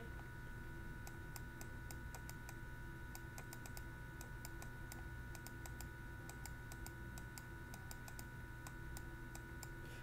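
Faint, irregular ticks and taps of a pen stylus on a tablet while writing, over a steady low electrical hum.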